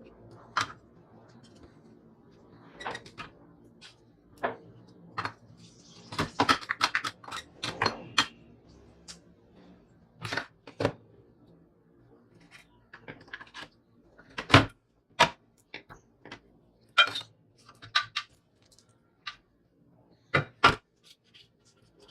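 Irregular clicks, taps and knocks of hard parts and tools being handled while a children's scooter is worked on, with a quick flurry of clicks about six seconds in and a few single louder knocks later.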